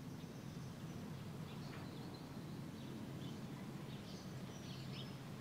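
Faint outdoor ambience: a steady low rumble with small birds chirping now and then, in short high calls.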